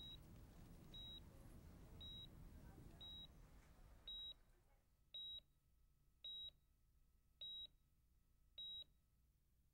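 Faint hospital heart monitor beeping: a short high beep about once a second, nine in all. The beeps grow louder about four seconds in and space out slightly toward the end.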